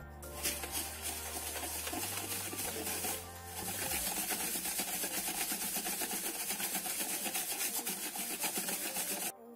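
A whisk beating granulated sugar and oil in a bowl: a fast, even run of gritty scraping strokes that cuts off abruptly near the end.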